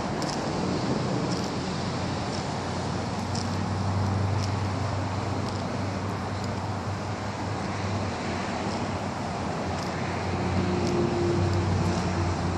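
Outdoor background noise of road traffic: a steady low rumble that swells a little midway and again near the end.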